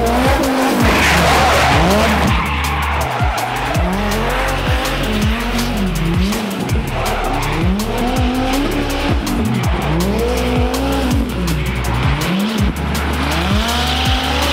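Twin-turbo V10 Dodge Viper drifting with its tires squealing. The engine revs rise and fall over and over, roughly every one and a half to two seconds, as the throttle is worked through the slide.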